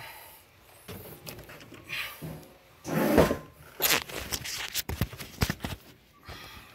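Tools being handled in a car's engine bay: a loud scrape about three seconds in, then a run of sharp, irregular clicks and knocks.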